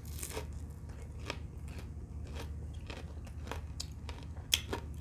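Close-up chewing of a crispy breaded fried chicken strip, with irregular crunches and wet mouth sounds and one sharper crunch near the end.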